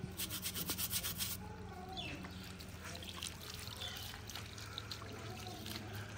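Singed trotters (paya) being scrubbed by hand in water to wash off the soot and ash left by the burning. Fast rubbing strokes, several a second, stop about a second and a half in. After that there is faint water and a low steady hum.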